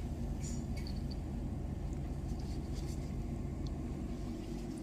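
Steady low machine hum, with faint scattered rustles and small clicks over it.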